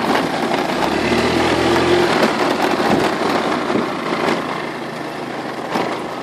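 Small motor scooter's engine running while riding along a rough gravel track, with steady tyre and rattle noise.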